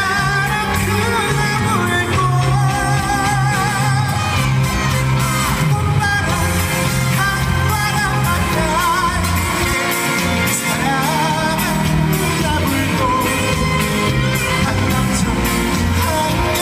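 A male trot singer singing live over a loud backing track, his held notes wavering with vibrato.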